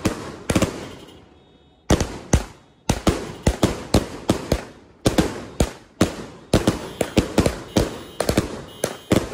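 A 100-shot repeater cake firework firing shell after shell: sharp bangs as the shells launch and burst. A short pause about a second in, then a rapid steady volley of about three bangs a second.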